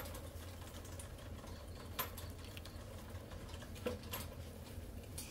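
Charcoal rotisserie grill: a few scattered sharp clicks and pops from the hot coals and metal skewers over a low steady hum of small electric fans blowing on the fire.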